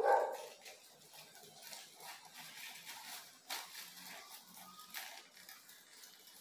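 Leaves rustling and light clicks as hands handle and untangle a Nepenthes pitcher plant's foliage in its plastic pot, with sharper clicks about three and a half and five seconds in. A brief louder sound comes right at the start.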